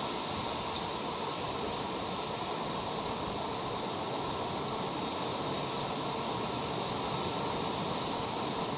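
Steady, even hiss from a nest camera's outdoor microphone, with one faint short click about a second in.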